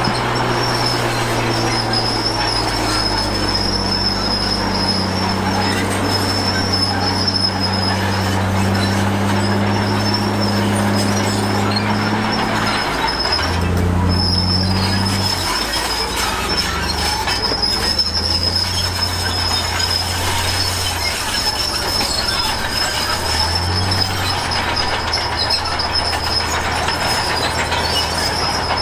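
Heavy diesel earthmoving machinery working, its engine running steadily and changing note several times, with a continuous high-pitched squeal over it.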